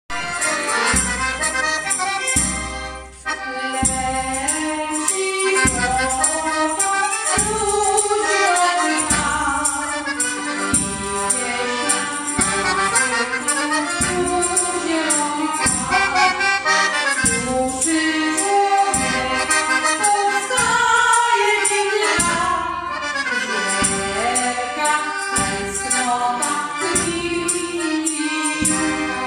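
Piano accordion and violin playing a folk tune while a woman sings into a microphone, the accordion's bass keeping a steady beat.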